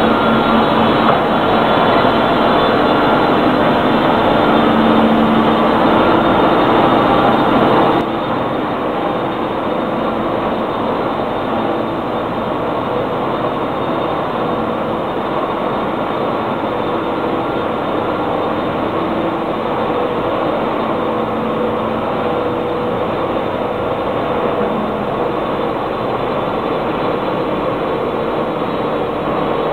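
Steady, dense machinery noise from a running aluminium rod continuous casting and rolling (CCR) line, with a hum at a few steady pitches. The noise drops a step about eight seconds in, then carries on steady.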